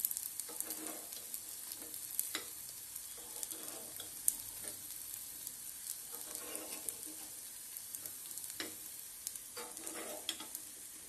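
Sooji appam balls frying in oil in an appam pan: a steady soft sizzle, with a metal spoon scraping against the pan and giving a few sharp clicks as the balls are turned over.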